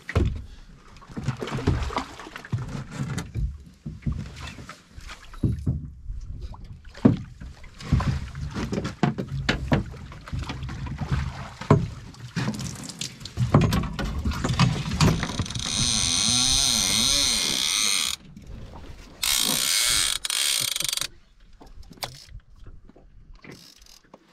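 Irregular knocks, clicks and rattles of gear being handled aboard a small fishing boat. Near the end come two steady whirring spells, the first about three seconds long and the second about two.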